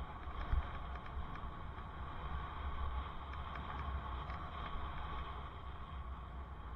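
Steady wind and road rumble from a bicycle ride, picked up by a helmet-mounted camera, with a single low thump about half a second in.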